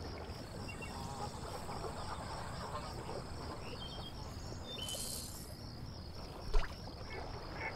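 Insects chirping in a steady, pulsing high-pitched rhythm over an outdoor hush, with a few short high calls, a brief hiss about five seconds in and a soft thump shortly after.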